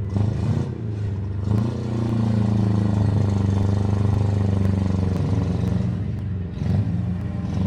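Engines of demolition derby minivans and mini trucks running hard: a steady low drone that swells about a second and a half in and eases near the end.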